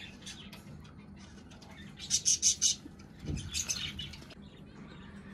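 Birds chirping in two short bursts of quick, high chirps, with a single dull thump between them.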